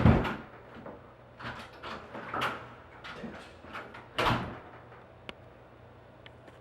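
A door being opened and shut: a series of knocks and thuds, the loudest at the very start and another about four seconds in, then a couple of faint clicks.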